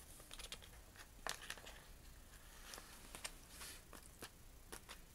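Hands kneading and stretching freshly made glue-and-borax glitter slime on a paper plate, giving a faint scatter of short clicks and crackles.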